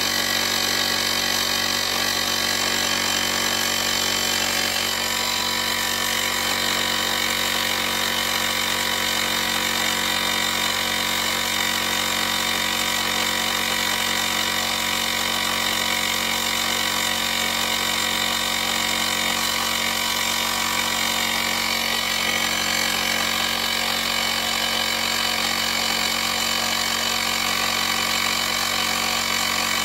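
The small electric air compressor built into a UIBI portable jump starter, running steadily as it inflates a car tire through its hose and chuck toward 39 PSI.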